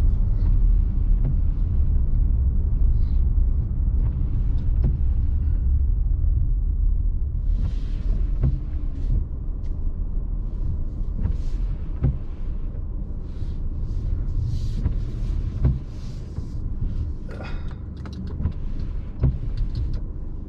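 Diesel vehicle's cabin rumble while rolling slowly, a steady low rumble of engine and tyres that eases off gradually as the vehicle slows, with a few faint clicks and knocks.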